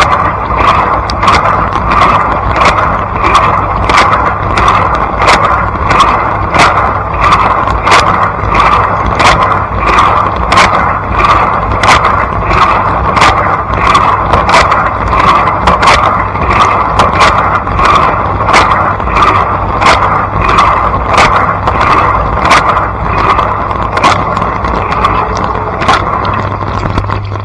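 Inside a running Blanco dishwasher: water spraying hard from the rotating spray arms over a steady low hum from the wash pump. A sharp slap repeats about twice a second as the jets sweep past.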